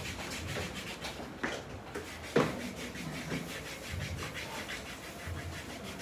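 Hair rasping in quick, regular scratching strokes as a crochet hook is worked in and out through a dreadlock to interlock it, with a sharp click about two and a half seconds in.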